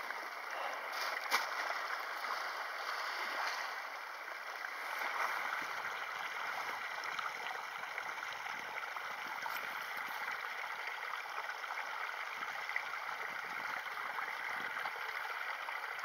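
Steady wash of waves on a pebble shore, with a few faint clicks in the first couple of seconds.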